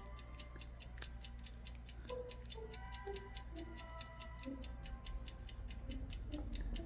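Lock pick working the pins of a lock, making a rapid, irregular run of light metallic clicks, several a second.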